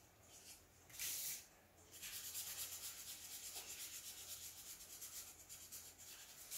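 Black Sharpie marker scribbling on paper over a cardboard underlay, colouring in a shape: a short scratch about a second in, then quick back-and-forth strokes in a fast, even rhythm from about two seconds in.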